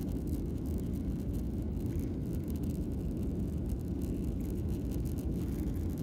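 Steady low rumble inside a jet airliner's cabin as it taxis, its engines at low power.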